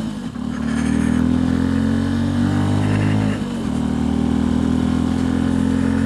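Benelli TNT 125's single-cylinder 125cc four-stroke engine running steadily under way, heard from the rider's seat. The engine note breaks briefly about three and a half seconds in, then carries on.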